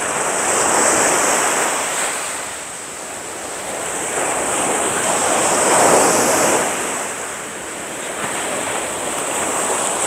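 Small waves breaking and washing up on a sandy beach, the surf swelling and easing twice.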